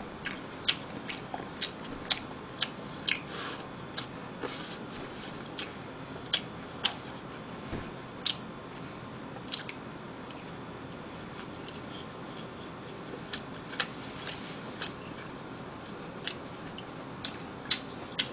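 A person chewing and biting pan-fried battered food close to the microphone: short wet mouth clicks and smacks at irregular intervals over a quiet room background.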